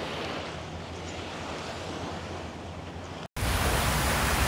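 Beach ambience: surf washing ashore with wind on the microphone. The sound drops out briefly about three seconds in and comes back louder.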